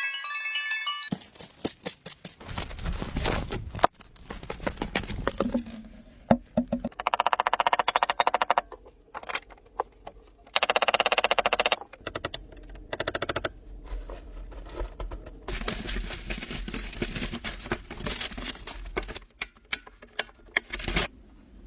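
Hand work on wood: irregular knocks and taps, with two stretches of rapid rasping strokes, about a third of the way in and about halfway.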